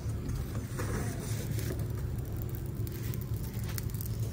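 Steady low engine drone, with faint crackling from a wood fire burning in a clay tandoor.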